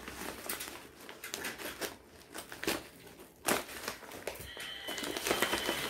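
Plastic packaging crinkling and rustling as a parcel of clothes is opened and handled, with a sharper crackle about three and a half seconds in.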